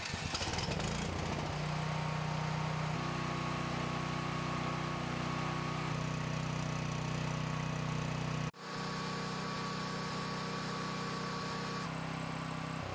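Ryobi 420cc single-cylinder EFI generator engine catching on its electric start and then running steadily. The sound drops out for an instant about two-thirds of the way through and comes straight back.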